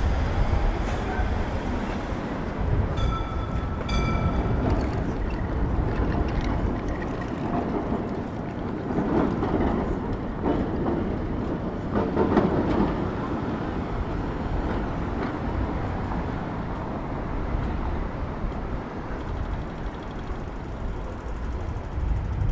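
City street traffic, a steady rumble of passing vehicles that swells and fades, with two short high-pitched squeals about three and four seconds in.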